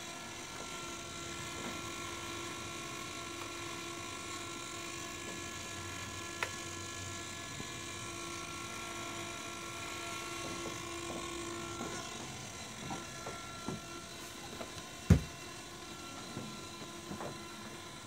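Steady electric buzz and whine from a powered-up radio-control model airplane's servos and electronics, with a few light clicks and one sharp knock about fifteen seconds in.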